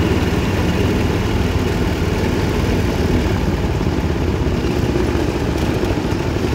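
Go-kart engine running steadily at an even pace, with no clear revving up or down.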